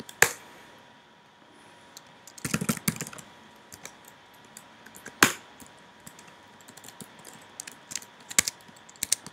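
Typing on a computer keyboard: irregular keystrokes, with a quick run of them about two and a half seconds in and a few sharper clacks scattered through.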